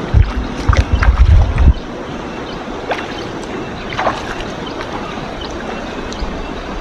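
Shallow river water splashing and sloshing as someone wades between boulders, over a steady hiss of flowing water, with a few short splashes. A loud low rumble fills the first second and a half.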